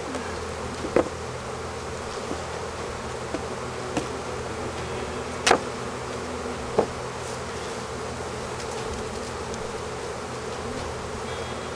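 Dense, steady buzzing of a honeybee colony boiling out of an open hive, with a few short sharp ticks over it, the loudest about halfway through.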